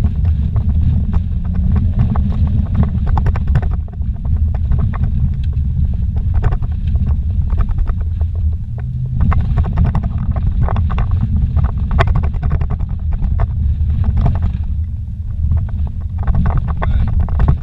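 Inside a car's cabin on a rough dirt road: a steady low rumble of engine and tyres, with frequent knocks and rattles as the car jolts over the bumps.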